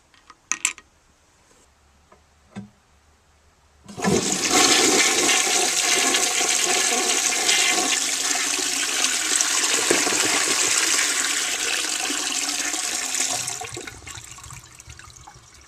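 A 1931 Standard Ejecto toilet flushing. A few small clicks come first, then a loud rush of water starts about four seconds in. It runs steadily for about nine seconds and dies down to a faint hiss.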